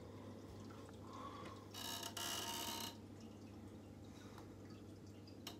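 Fluval Flex aquarium's built-in filter running: a faint steady low hum with water trickling and small drips and ticks. About two seconds in, a louder hissing rush lasts about a second.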